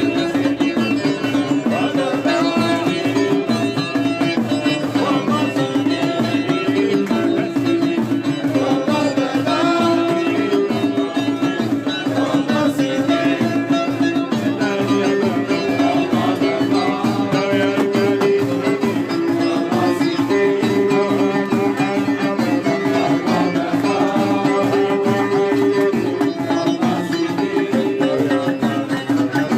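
Traditional-style music: a melody on string instruments over a steady hand-drum beat.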